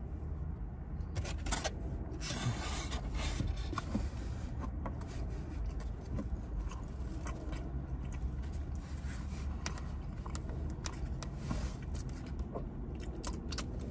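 Foam takeout clamshell being handled and tilted, giving scattered small scrapes, rubs and clicks over a steady low rumble.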